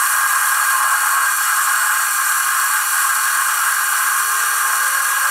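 Warco WM180 mini lathe turning mild steel with a CCMT carbide insert at 0.5 mm depth of cut: a steady, loud hissing noise of the cut, with faint steady tones from the lathe underneath.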